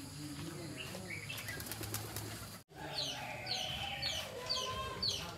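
Chicks peeping: repeated high, falling peeps about two a second, beginning after a brief break about halfway through.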